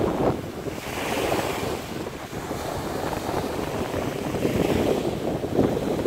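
Small waves washing onto a sandy beach, with wind buffeting the microphone in uneven gusts, strongest near the start and the end.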